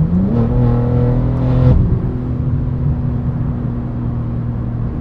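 BMW M3 G80's twin-turbo straight-six, through an aftermarket titanium exhaust, accelerating: the engine note rises quickly, holds for about a second and a half, then drops and settles into a steady drone while cruising.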